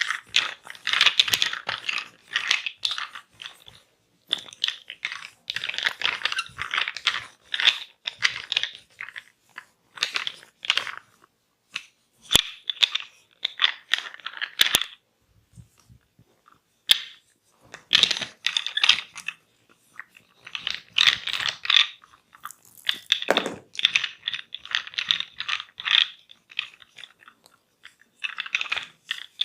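Dense crackling scratches in repeated bursts of a second or two with short pauses between, a few single clicks in a quieter stretch midway: fingers rubbing and scratching through hair on the scalp during a head massage.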